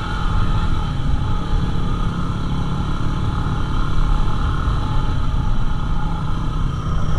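Yamaha WR250R's single-cylinder four-stroke engine running steadily while riding, heard with a heavy low rumble.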